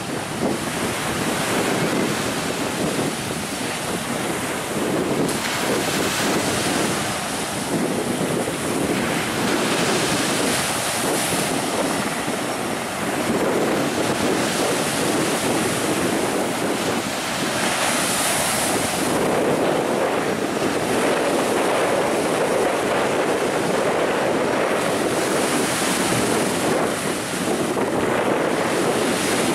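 A Sikorsky S-64 Skycrane twin-turbine helicopter hovers low over the sea while it draws water up its snorkel. There is a steady rush of rotor downwash whipping the surface into spray, mixed with the helicopter's rotor and engine noise and wind buffeting the microphone.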